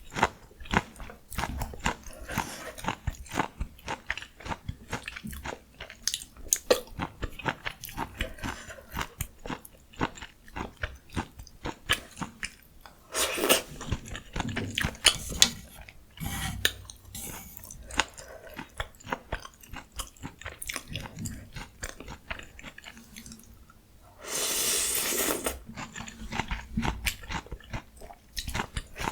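Close-miked chewing and crunching of food, with many quick wet clicks and crunches. About three-quarters of the way through there is one steady rush of noise lasting about a second and a half.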